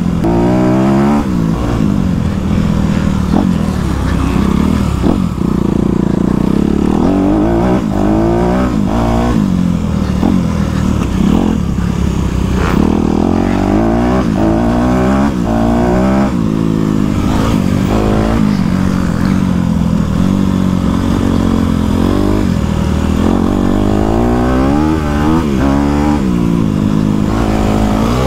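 Dirt bike engine running under load, its pitch climbing and dropping again and again as the throttle is opened and shut and the gears change.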